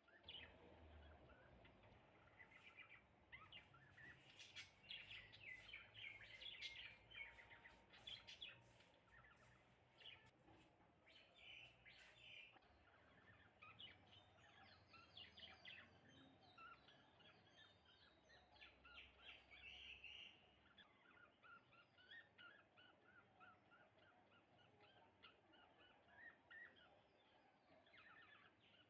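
Birds chirping and twittering faintly, a busy tangle of short calls over the first half, then quicker runs of repeated notes.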